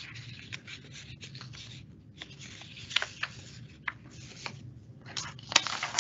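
Rustling and scratching from papers or a pen being handled at a desk close to the microphone, with short clicks and a sharper click near the end, over a low steady hum.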